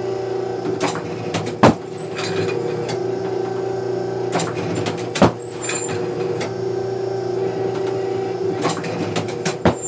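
Oscillating automatic trap machine running with a steady hum, with clusters of mechanical clicks and clanks and three sharp bangs about four seconds apart as it throws clay targets and cycles the next one into place.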